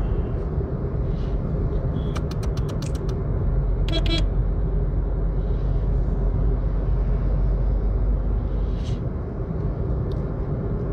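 Steady low rumble of road and engine noise heard from inside a car driving on a highway. It grows a little louder from about four seconds in as a heavy truck is overtaken. There is a quick run of clicks about two seconds in and a short, high, pitched sound about four seconds in.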